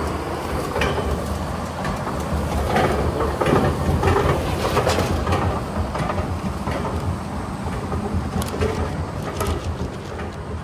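Plastic masking sheeting crinkling and rustling as it is pulled and handled over a car body, in many irregular crackles over a steady low rumble.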